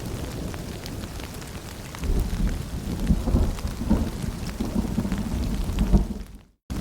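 Rain ambience: a steady patter with scattered drips and a low rumble that swells about two seconds in. The sound cuts out to silence for a moment near the end, then resumes.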